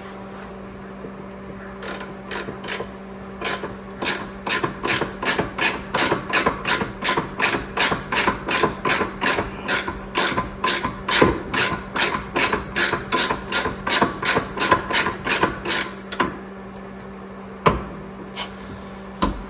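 Hand ratchet wrench working a suspension bolt on a rear traction arm: a long run of sharp, even clicks, about three a second, that stops about four-fifths of the way through, followed by two separate knocks.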